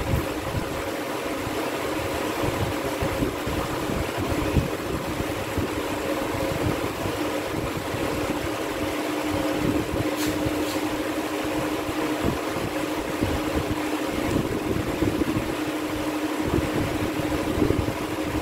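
Steady hum of a running room fan, a constant low tone over an even rushing air noise. A few faint chalk strokes on a blackboard about halfway through.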